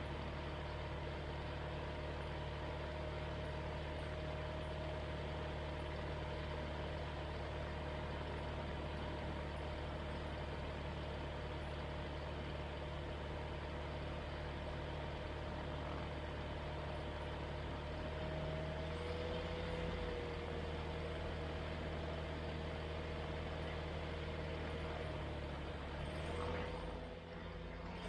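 Flight Design CTSW's Rotax 912 engine and propeller running steadily at low power while the aircraft waits before takeoff, heard from inside the cockpit. The engine note shifts slightly about two-thirds of the way through and again near the end.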